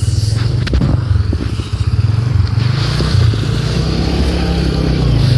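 Steady low rumble of a running motor vehicle, with a few sharp clicks in the first second.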